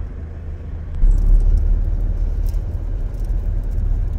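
Car interior noise while driving: a steady low engine and road rumble heard from inside the cabin, growing louder about a second in, with scattered light ticks and rattles.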